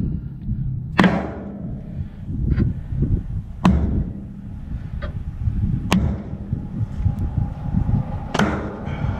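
Sharp knocks and clicks of stones and gravel being handled and dropped around the base of a steel post, about seven separate strikes, over a steady low rumble.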